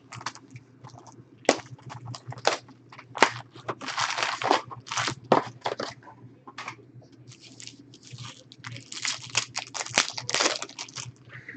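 Packaging of a trading card box and pack being torn open and crinkled, heard as a string of irregular crackles and short rips.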